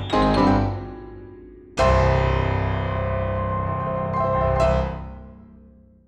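Piano music: the last notes of a rising run, then a loud chord about two seconds in that rings on and fades away, with a smaller accent near the end before it dies out.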